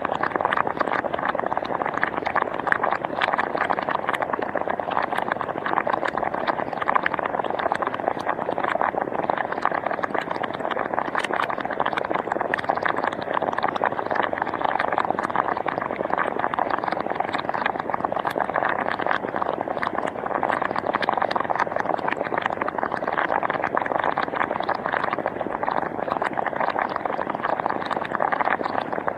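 Hot spring bubbling: a steady, dense run of small pops and gurgles as gas bubbles break the water's surface.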